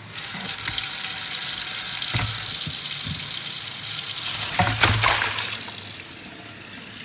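Kitchen tap running steadily into a plastic colander in a steel sink, with a couple of short knocks about two and five seconds in. The water gets quieter near the end.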